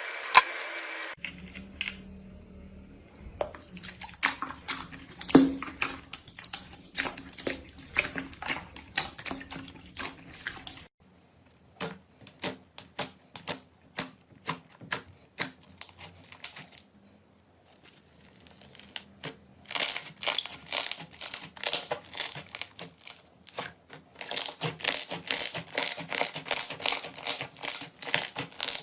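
Slime being squeezed and kneaded by hand, giving rapid wet sticky clicks and pops, in several separate stretches that change abruptly, with the fastest, densest clicking near the end.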